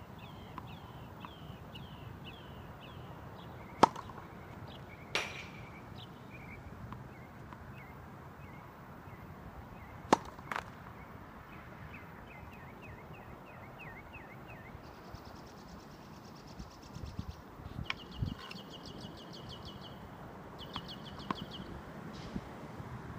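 Tennis ball struck by rackets in a rally: two loud sharp hits about four and ten seconds in, each answered within about a second by a softer pop from farther off. Birds chirp and a pulsed buzzing trill runs underneath.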